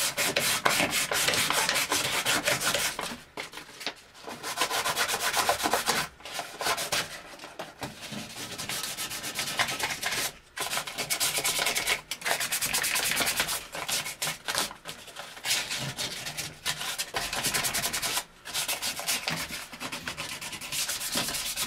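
Sandpaper rubbed back and forth by hand on Schedule 40 PVC pipe in quick scratchy strokes, with a few brief pauses, roughing up the pipe's surface before gluing.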